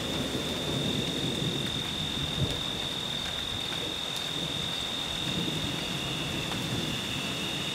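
Thunderstorm ambience: a low rumble of distant thunder and a steady hiss of light rain, over a constant high drone of insects.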